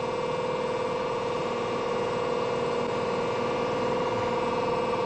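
Steady hum of an idling Di-Acro 17-ton dual-pump hydraulic press brake, its electric motor and pump running while the ram stays still.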